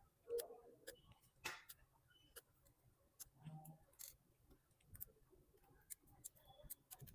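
Faint, scattered light clicks and taps of small repair tools against a phone's internal parts and screws, about one click every second.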